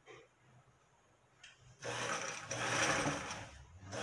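Electric domestic sewing machine starting up a little before halfway, its pedal-driven motor and needle running in a fast steady whir while stitching a hem, easing off briefly near the end before running on.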